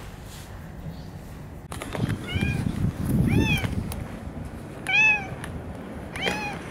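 An orange-and-white female cat meowing four times, short calls that rise and fall in pitch, starting about two seconds in.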